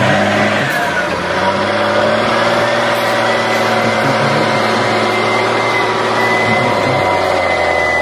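John Deere tractor's diesel engine running hard as it hauls a loaded trailer through deep mud, steady, with a thin high whine over the engine note that dips and recovers about half a second in.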